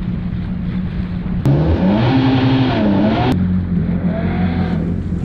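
Jet ski engines running with a steady drone. For about two seconds in the middle, an engine revs up and down.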